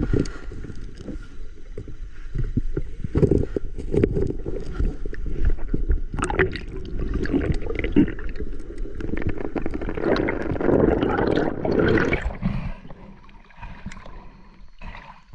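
Camera audio recorded underwater in a river: muffled water rushing and gurgling with scattered knocks and clicks. It grows quieter about three-quarters of the way through.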